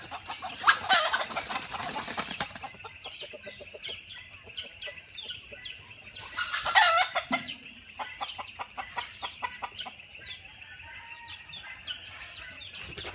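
Chickens clucking in quick runs of short pulses, with two loud calls, one about a second in and one about seven seconds in. Short high falling chirps repeat throughout.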